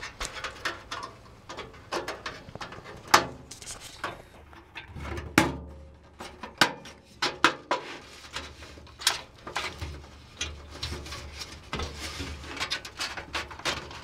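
Irregular sharp metallic clicks and taps as a motherboard's thin steel I/O shield is handled and pressed into the rear opening of a PC case.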